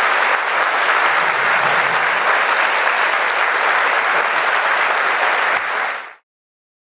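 Large audience applauding steadily; the clapping fades away about six seconds in, leaving silence.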